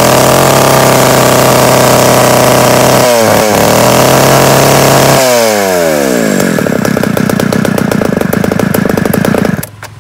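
Makita two-stroke petrol chainsaw held at high revs, with a brief dip about three seconds in. About five seconds in the throttle is released and the revs fall to a steady idle, and the engine stops shortly before the end. It runs crisply on this test run.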